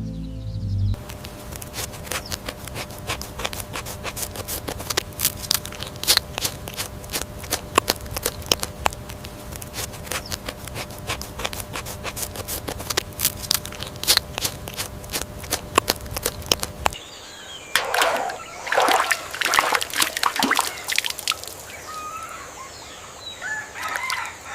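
Water splashing and sloshing with many sharp irregular ticks. About two-thirds of the way in, the sound changes to louder, separate splashes with short high chirping calls over them.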